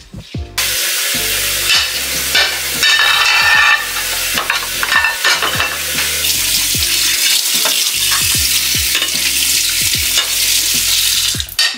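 Food sizzling as it fries in a pan: a steady, loud hiss that starts abruptly just after the beginning and cuts off just before the end.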